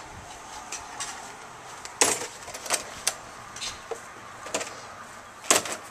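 Sharp clacks and rattles of a white picket-fence gate and its metal latch being handled, about half a dozen knocks, the loudest about two seconds in and near the end.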